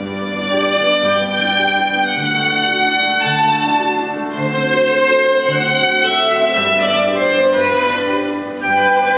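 Violin and digital piano playing classical chamber music. The violin carries a sustained, gliding melody over low keyboard notes that change about once a second.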